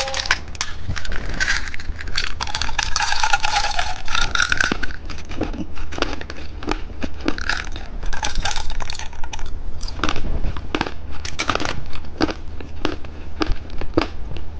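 Plastic candy packaging crinkling and crackling as it is handled and opened. A dense crinkle fills the first few seconds, then comes a run of separate sharp clicks and crackles.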